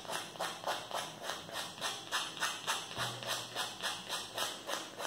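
Nail file sanding the overhanging edges off scrapbook paper glued onto an MDF piece: quick back-and-forth scratching strokes, about three a second.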